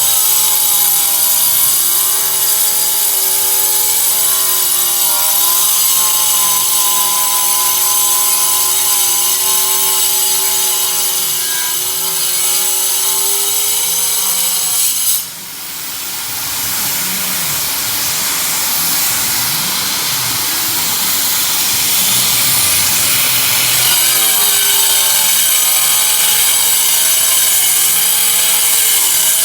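An electric power tool runs at high speed and cuts, its motor whine shifting in pitch as it is loaded. About halfway through, the sound dips briefly, then turns into a harsher, noisier cutting sound for several seconds before the steady whine comes back.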